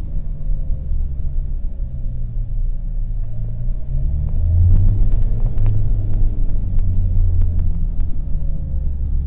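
Opel Vectra C 1.9 CDTI diesel car under engine braking: a steady low rumble, with a faint whine slowly falling in pitch near the start and again near the end. This is the strange noise that shows up during engine braking and goes away with the clutch pressed; the owner suspects the air-conditioning compressor or its pulley, the alternator or the gearbox.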